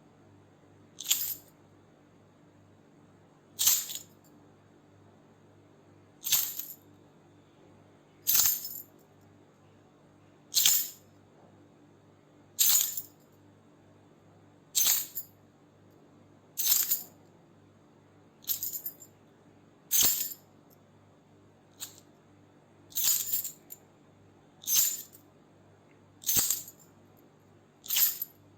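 A bunch of keys shaken in short, separate high jingles, about fifteen of them at intervals of roughly two seconds, over a faint steady hum.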